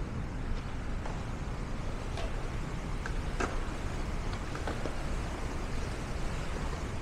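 City street ambience: a steady low rumble of traffic, with a few short clicks partway through.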